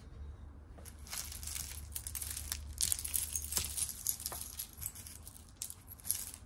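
Costume jewelry clinking and rattling: metal chains, beads and bracelets knocking together as they are pulled out of a tangled pile.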